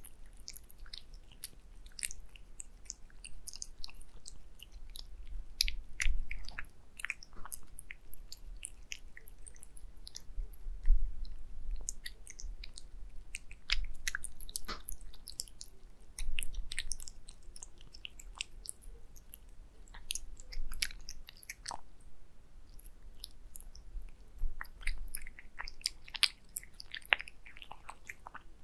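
A tabby cat eating wet cat food from a glass dish, close up: an irregular run of short, wet clicks as it laps and chews.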